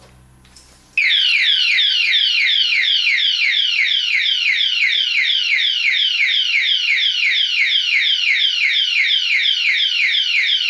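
Electronic alarm padlock's built-in siren going off at full alarm, set off by the lock being touched a second time while armed. It starts about a second in: a loud, rapid warble of high falling sweeps, about four a second, held steady.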